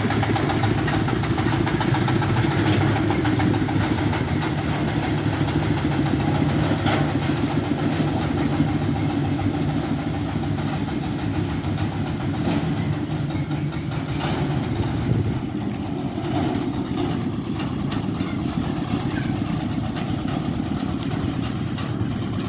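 Dongfeng 32 hp diesel engine of a steel-wheeled oil palm bunch carrier running steadily as the vehicle drives off, with a few clanks. It gets a little fainter after about fifteen seconds.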